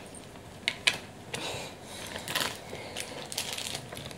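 Light, scattered clicks and taps of small plastic toy seats being handled and slotted onto the plastic base of a Sylvanian Families Seaside Merry-Go-Round.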